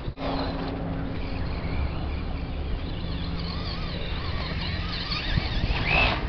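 Traxxas Rustler VXL RC truck's brushless electric motor whining, rising and falling with the throttle as the truck drives and wheelies on grass, with a brief sharper squeal about six seconds in.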